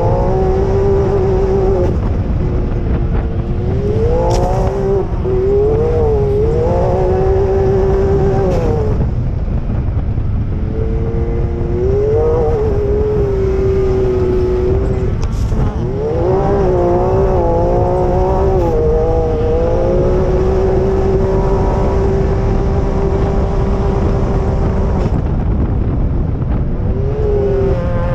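Off-road vehicle engine revving up and down again and again over the dunes, with a steadier stretch past the middle, over a heavy low rumble.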